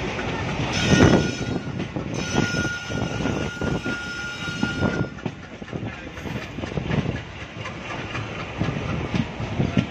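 Alco WDM-3D diesel locomotive running while shunting, with its 16-cylinder engine working and irregular clanks and knocks of wheels over rail joints and points. A thin steady high whine sounds briefly about a second in and again for about three seconds from two seconds in.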